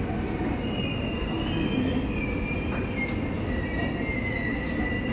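Seoul Subway Line 5 train braking as it runs into the station: a steady low rumble, with a thin high squeal that slides slowly down in pitch as it slows.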